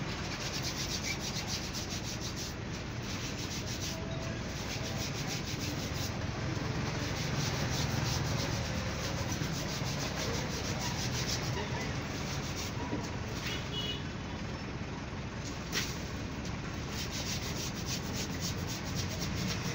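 Steady rough rubbing noise, even throughout with a fine crackle, and no distinct events.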